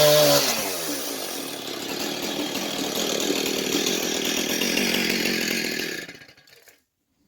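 An engine-driven saw cutting through an old creosote-treated railroad tie. The engine's pitch drops just after the start as the blade bites into the wood, then it cuts steadily. The sound dies away about six seconds in.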